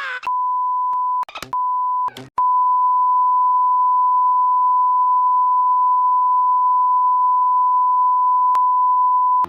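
Censor bleep: a steady, high single-pitched beep tone covering swear words, heard first as a few short beeps with brief snatches of other sound between them, then as one long unbroken beep of about seven seconds.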